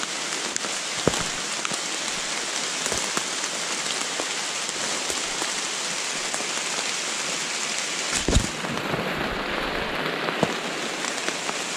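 Steady rain falling on the forest leaves, with scattered fine drop ticks, and a dull knock about eight seconds in.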